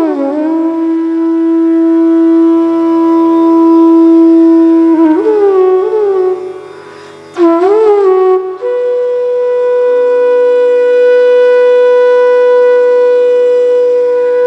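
Indian classical-style instrumental music: a flute playing a slow melody of long held notes, each approached with an ornamented slide, over a steady low drone. The music dips briefly and quietens about six seconds in, then resumes with a new held note.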